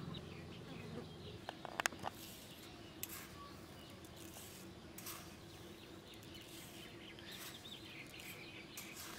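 Faint birds chirping, with a few light clicks of a steel spoon against a steel bowl about two seconds in, as sugar is spooned onto grated mango.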